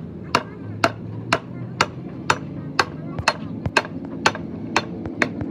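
Hammer blows on the steel pivot pin of a truck fifth wheel plate's mounting bracket, about two even strikes a second, eleven in all.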